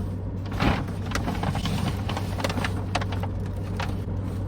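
A takeout food bag crinkling and rustling in a string of short crackles as it is grabbed and handled, over a steady low hum of a car's engine idling.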